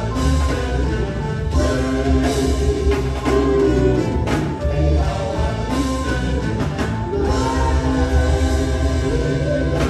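Live soul vocal group singing in harmony with a band of drums, keyboard, electric guitars and horns. In the last few seconds the voices hold a long note.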